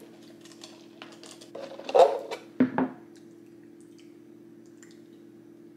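Table eating sounds: small clicks of a fork and dishes, with a louder brief sound about two seconds in and another shortly after, over a steady low hum.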